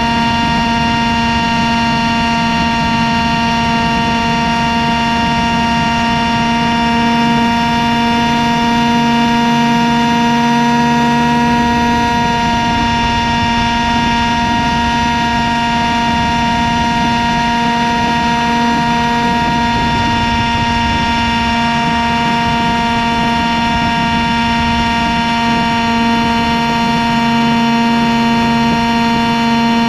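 Model tandem-rotor helicopter's rotors and drive running in flight, a steady high whine heard close up from on board, rising slightly in pitch about eleven seconds in.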